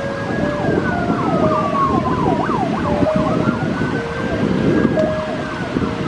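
Park fountain jets splashing, with wind buffeting the microphone. Over it runs a siren-like wail that rises and falls slowly, along with quicker up-and-down sweeps and short held notes.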